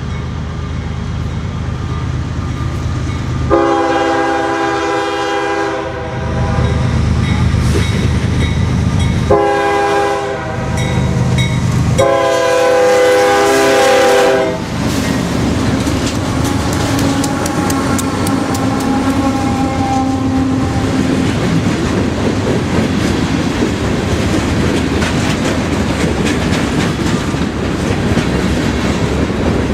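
Diesel freight locomotive sounding its air horn in three blasts as it approaches, the last one the longest, over the rumble of its engine. Then the train passes close by, its wheels clicking over the rail joints.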